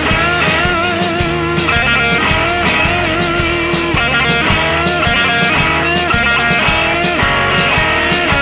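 Background rock music: a guitar line with vibrato over a steady drum beat.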